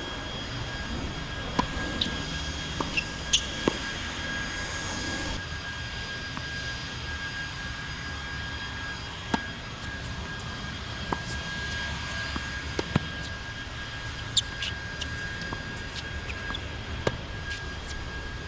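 Tennis balls being struck by rackets and bouncing on a hard court: sharp pops, several close together in the first few seconds, then single ones every second or two. Under them run a steady low rumble and a thin constant high tone.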